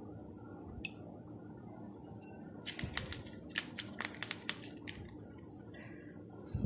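Handling noises as a styrofoam cup is lifted out of a glass bowl and turned in the hands: a quick run of sharp clicks and taps in the middle, with a softer rustle near the end.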